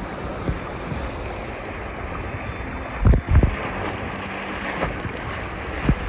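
River current rushing and splashing past an inflatable raft, with wind on the microphone. A couple of low thumps come about halfway through.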